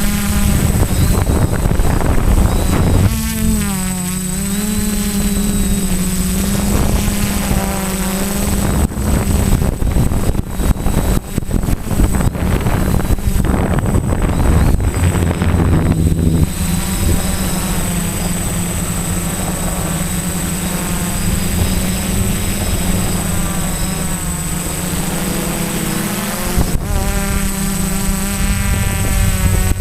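Quadcopter electric motors and propellers buzzing in flight, the pitch dipping and rising with the throttle. For several seconds in the middle the buzz is broken up by rough, buffeting wind noise.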